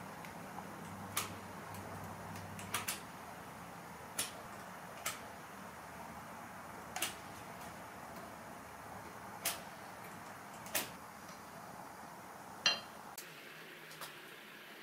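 Sharp, sparse metallic clicks and taps, about ten of them, as a knife blade and gloved fingers work against a metal plane side plate laid on wood. One louder click near the end rings briefly.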